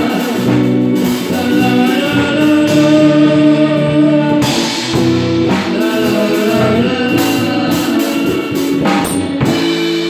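A live rock band playing: electric guitar and a drum kit with cymbal crashes, and a man singing into the microphone. Loud cymbal hits come a little under halfway through, again about two-thirds through, and near the end.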